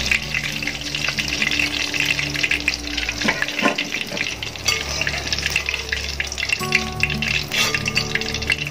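Hot oil crackling and sizzling as chilli-marinated chicken pieces deep-fry in a wide metal pan, with a wire skimmer stirring through the oil to lift them out.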